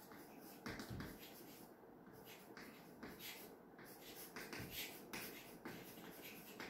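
Chalk writing on a chalkboard: faint, irregular taps and short scratches of the chalk stick against the board.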